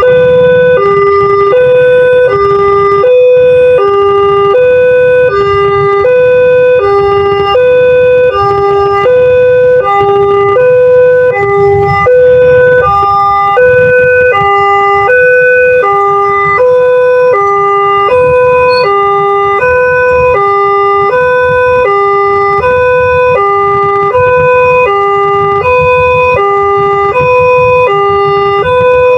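Railway level-crossing warning siren of the Multec type sounding a fast two-tone hi-lo alternation, switching pitch about every two-thirds of a second, warning that a train is approaching. A low rumble runs underneath.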